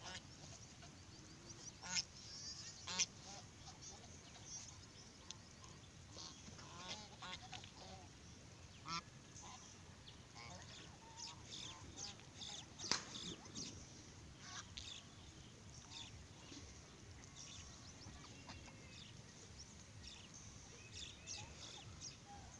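Domestic geese honking now and then: short calls scattered through, the loudest about two, three and thirteen seconds in.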